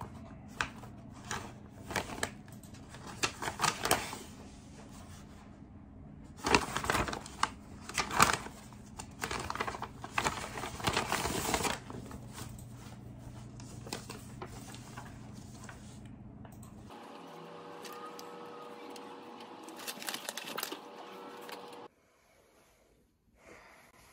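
Paper packaging crinkling and rustling as it is handled, with scattered clicks and sharper crackles that are loudest in the middle of the stretch. A steadier, quieter rustle follows.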